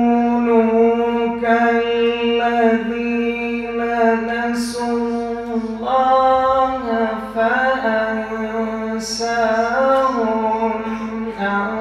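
A man reciting the Qur'an in Arabic in the melodic, drawn-out tajwid style, holding long ornamented notes on one voice. The pitch shifts about halfway through, and two brief hissing consonants break in near 4.5 s and 9 s.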